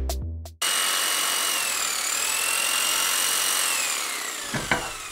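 Electronic music ends in the first half second. Then a power tool's electric motor runs with a high whine over a hiss. The pitch dips about two seconds in and falls slowly toward the end, with a short clack shortly before the end.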